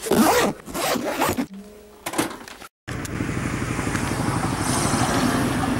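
Zipper on a suitcase pulled in several quick strokes over the first second and a half. After a sudden cut, a steady noise runs on.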